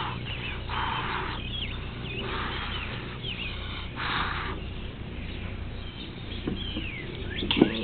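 Aerosol silicone spray hissing in three short bursts about a second and a half apart, one per row of cube pieces.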